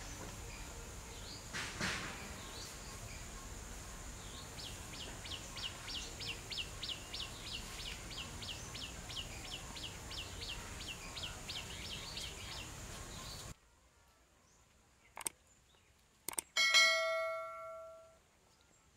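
Outdoor pondside background with a steady high hum and a rhythmic chirping call, about four chirps a second, for several seconds. The background then cuts out, and a subscribe-button sound effect plays: two sharp clicks and a bell chime that rings down over about a second and a half.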